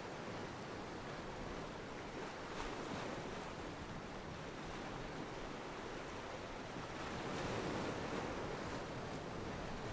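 Ocean surf: waves breaking and washing over the shallows in a steady rush, swelling a little about eight seconds in.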